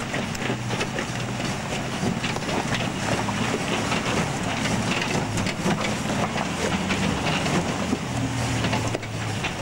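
Land Rover 101 Forward Control's Rover V8 engine running under load as the truck crawls over rocks out of a stream, its note shifting a little. Stones knock and crunch under the tyres throughout.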